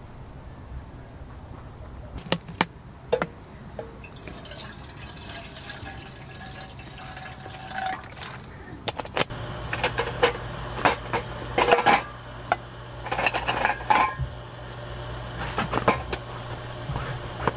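Water poured from a plastic bottle into a metal camping kettle for about five seconds, its pitch rising as the kettle fills. This is followed by a run of sharp clinks and knocks as gear is handled.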